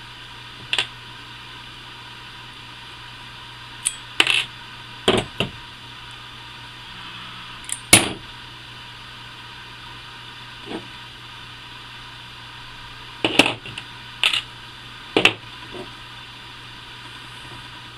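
Scattered sharp clicks and taps of small steel parts and a pin punch as a Daisy Powerline 880 air rifle's trigger assembly is taken apart and its pins, spring and pieces are set down on a tabletop, about ten irregular knocks over a faint steady hum.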